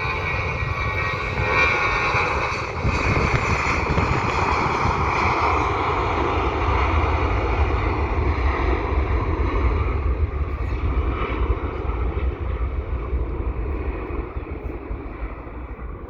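Jet airliner taking off, its engines at takeoff thrust: a loud roar with a deep rumble. The roar builds over the first few seconds, holds steady, then eases off near the end as the plane pulls away.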